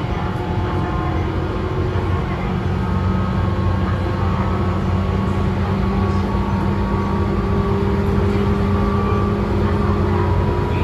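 Running sound inside the motor car of a Tobu 9000 series electric train: the steady whine of its chopper control and traction motors, held as several even tones over the rumble of the wheels on the track, slowly growing a little louder.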